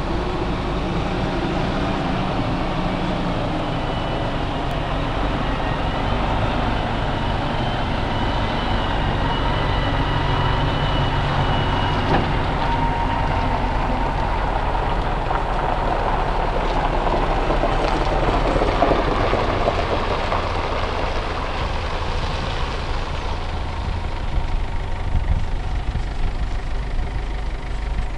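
Volvo articulated lorry's diesel engine running as the rig pulls a loaded low-loader trailer slowly past and away. A thin high whine sits over it for several seconds in the first half, and there is some clatter near the end.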